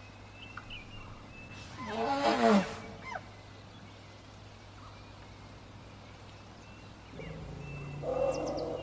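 African bush elephant calling: a loud, brassy trumpet about two seconds in, lasting about a second, its pitch falling at the end. A lower, longer call begins near the end, with faint bird chirps between.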